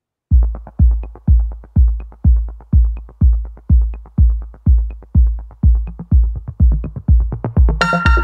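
Background electronic dance music with a steady heavy kick drum about twice a second and light ticks between the beats; a bright synth chord comes in near the end.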